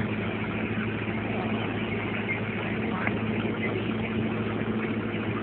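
Tractor engine idling with a steady, even low hum.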